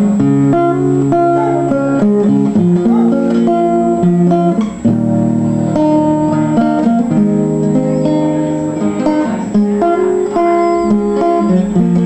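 Acoustic guitar playing a chord progression, its picked chords ringing on and changing every second or so.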